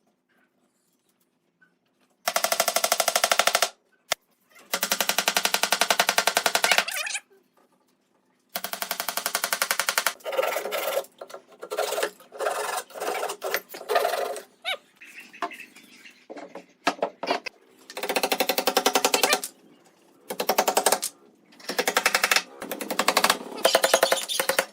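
A power tool running in repeated bursts of one to two seconds, each a fast, even rattling buzz, with short pauses between.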